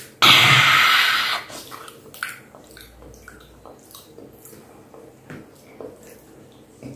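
A man's loud, breathy exclamation, about a second long, just after the start, then faint small clicks and rustles as his fingers split open a green petai (stink bean) pod.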